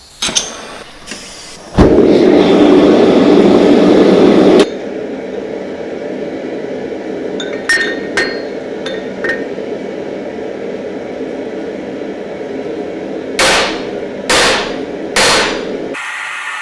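Blacksmith's hammer striking steel on an anvil: three heavy blows near the end, with a few lighter clinks earlier, over a steady rushing noise. A louder rush of noise lasts about three seconds near the start.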